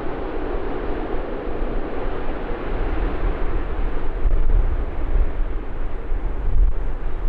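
Boeing 737-800's CFM56 jet engines running as the airliner decelerates on a wet runway after landing, a steady noisy rush. Heavy wind buffets the microphone with a low rumble that grows stronger about halfway through.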